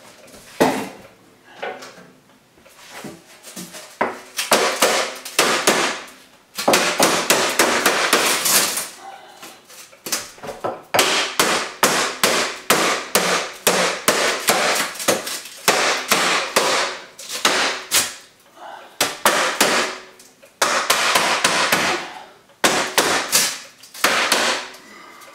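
Hammer tapping on the rim of an 8-inch sheet-metal stove pipe, driving it into the chimney opening. It comes in runs of rapid strikes with short pauses between them.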